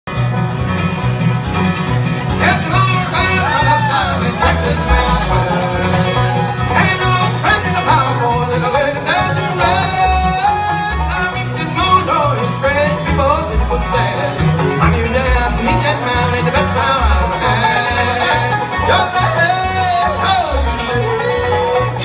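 Bluegrass band playing: banjo rolls, upright bass, strummed acoustic guitar and a fiddle carrying the melody.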